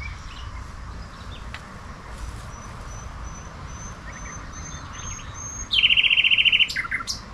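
Songbirds singing: a series of short, thin, high notes that creep up in pitch, then a loud, rapid trill near the end.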